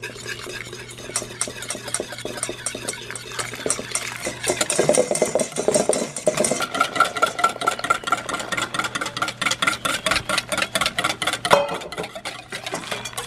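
Wire whisk beating egg yolks in a stainless steel bowl, a fast run of light metallic clicks and scrapes, as hot cream is whisked in to temper the yolks so they don't cook.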